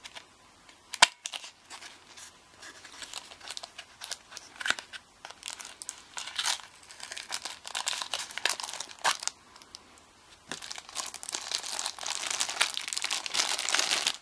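Cardboard packaging being opened and a clear plastic bag crinkling as a small device is pulled out and unwrapped. There is a sharp click about a second in, then scattered rustling that grows into dense, steady crinkling near the end.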